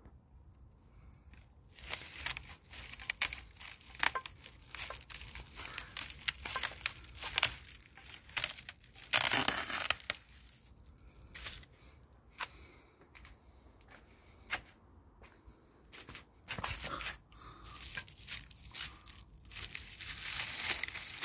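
Clear plastic wrap crinkling and tearing as it is cut and pulled off a cardboard box, in irregular crackles and rustles, with a longer tearing rush about nine seconds in.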